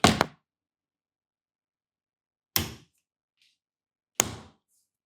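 Magnetic door catch clicking as a door is opened and closed: a quick double click at the start, then single sharp clicks about two and a half and four seconds in, each with a short thud.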